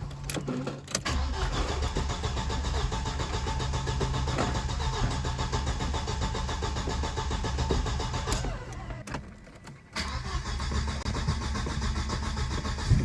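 1996 Audi B5's engine being cranked on the starter without catching, with a short pause about nine seconds in before cranking again. The no-start is later traced to worn, sooty spark plugs.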